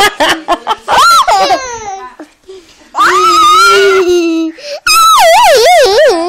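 A small child squealing and shrieking with laughter: several high, drawn-out calls, the last with a wavering, up-and-down pitch.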